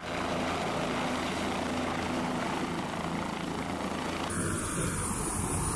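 Helicopter running: steady engine and rotor noise. The sound changes abruptly about four seconds in.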